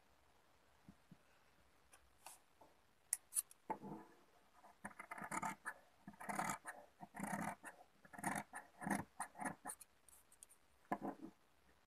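Fabric shears cutting through cloth in a run of short snips, about a dozen, starting about four seconds in after a few sharp clicks of the blades.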